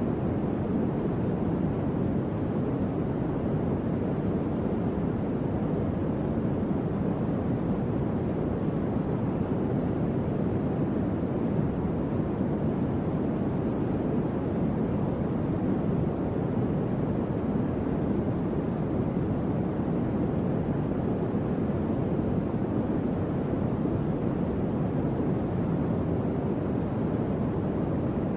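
Electric fan running: a steady, low rush of air with no rhythm, hum or change.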